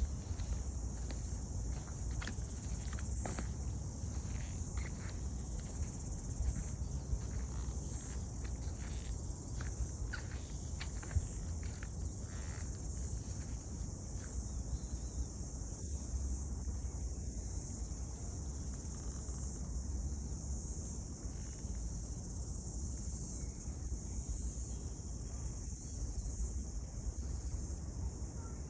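A steady, high-pitched insect chorus, with irregular footsteps on the forest path through the first half.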